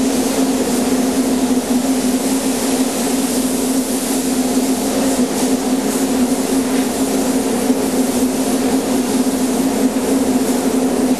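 Spray painting in a paint booth: the steady hiss of a compressed-air spray gun over the constant hum of the booth's ventilation fan.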